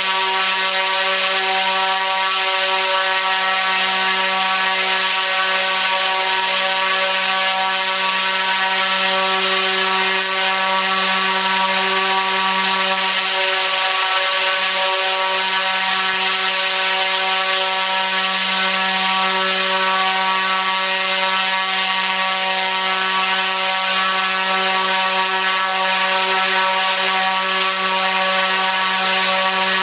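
T-Motor U13 (100kV) brushless motor driving a 29-inch carbon-fibre three-blade propeller at full throttle: a loud, steady drone with a strong low hum and many overtones, over a constant rush of air from the propeller.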